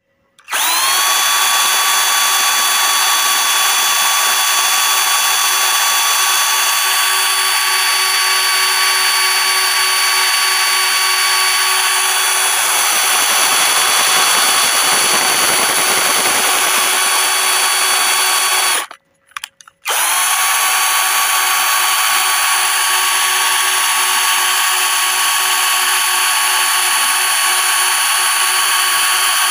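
Electric drill running at a steady high whine, spinning up just after the start. A little past the middle it stops for about a second, blips briefly, then spins up again and runs steadily on.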